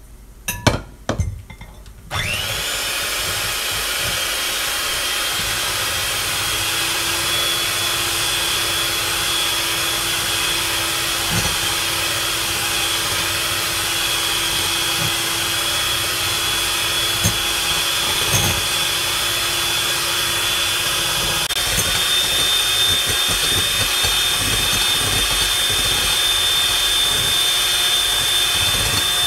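A few knocks from the bowls being handled, then an electric hand mixer starts about two seconds in and runs steadily with a high motor whine, its beaters whipping egg whites in a glass bowl. The whites are being beaten into a stiff white foam for an egg batter coating.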